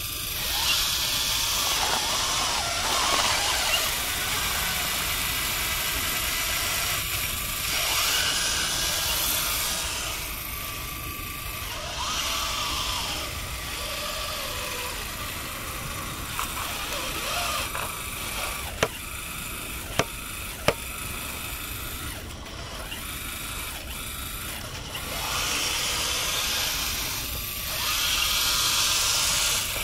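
Scale RC wheel loader (Premacon Liebherr 576) working, its electric drive motors and hydraulic pump whining and rising and falling in pitch as it drives and works the bucket. Three sharp clicks come about two-thirds of the way in.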